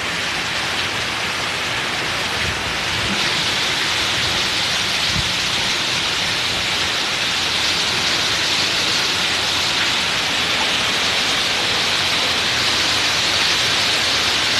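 Heavy rain falling steadily onto floodwater, a dense even hiss.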